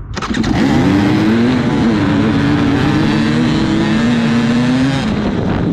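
Off-road racing engine running hard at high revs, its pitch wavering up and down with the throttle; it starts suddenly and is loud.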